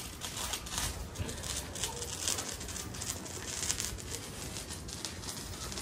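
A lit firework fizzing and crackling steadily, many fine clicks running together.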